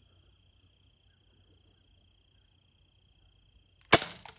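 A faint, steady high insect trill, like a cricket, then about four seconds in a single sharp shot from the gun fired at the microwave.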